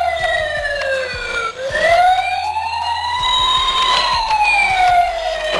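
Toy RC fire engine's built-in speaker sounding an electronic wailing siren. The pitch glides slowly down, rises again over about two seconds, then falls once more.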